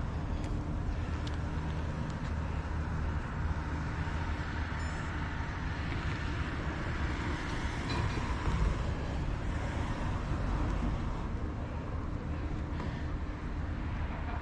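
A motor vehicle's engine running steadily, a low even hum with outdoor background noise.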